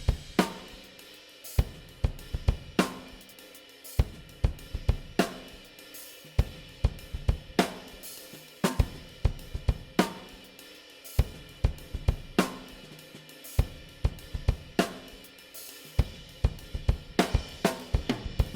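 Recorded drum kit playing a steady groove: kick, snare, hi-hat and cymbals, with a strong hit about every second and a quarter.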